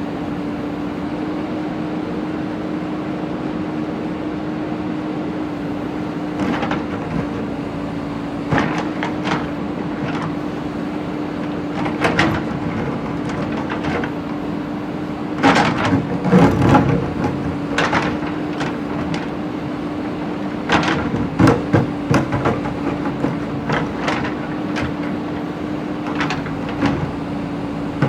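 JCB backhoe loader's diesel engine running at a steady note while the bucket clanks and scrapes against broken brick and stone. The knocks are irregular, starting about six seconds in, with the heaviest bursts near the middle and again about two-thirds of the way through.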